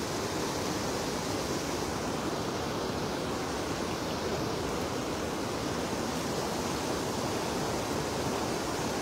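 Steady rushing of a shallow river flowing over stones.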